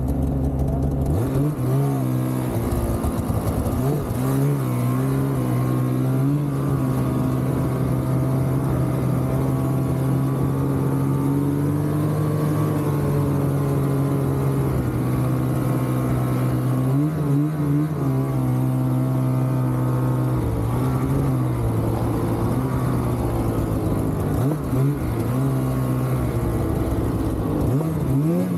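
Polaris 850 Assault snowmobile's two-stroke twin running at a steady trail-riding pace, its engine note holding level for long stretches with a few brief dips and rises as the throttle is eased off and reapplied.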